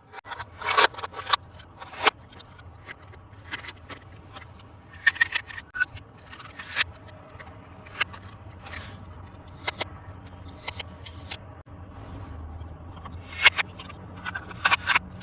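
Hands handling a plastic toy and its packaging: irregular sharp clicks, taps and short scrapes, a few a second, with a faint steady low hum underneath.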